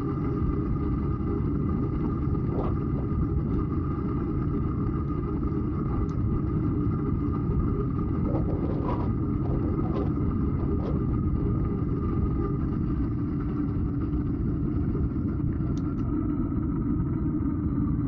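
Steady low rumble of a moving bicycle ride: wind on the microphone and tyre noise, with a few faint clicks, mostly around the middle.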